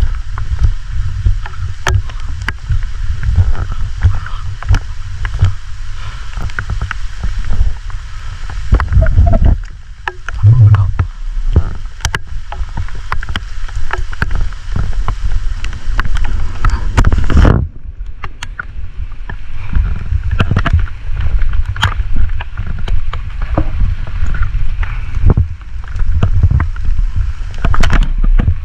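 Wind buffeting the microphone as a loud, constantly fluctuating low rumble, with many scattered sharp clicks over it.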